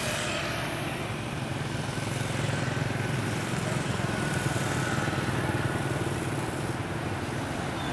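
Motor scooters riding past along the street, their small engines running over a steady wash of traffic noise, a little louder through the middle.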